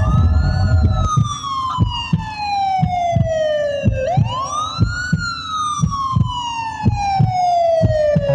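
A siren wail played in the dance music over the sound system: it rises for about a second and falls slowly over about three, twice, over a steady drum beat.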